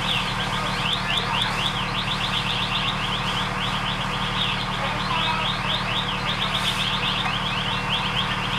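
Steady low engine drone of idling fire apparatus, overlaid by a rapid string of short, high-pitched falling chirps, about five a second, that keeps on throughout.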